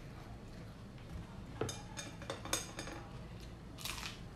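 Close-up eating sounds: crunchy chewing with a few sharp crackles about two seconds in, then a crisp bite into a fresh cucumber near the end.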